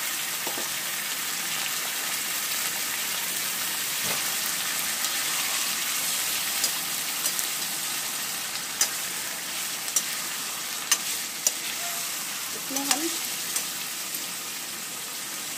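Raw chicken pieces sizzling in hot oil and ginger-garlic paste in a steel kadhai, with a slotted steel spoon stirring them and clinking sharply against the pan several times in the second half.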